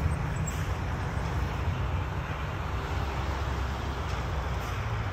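Steady road traffic noise of cars and buses passing below, mostly a low rumble with no distinct single event.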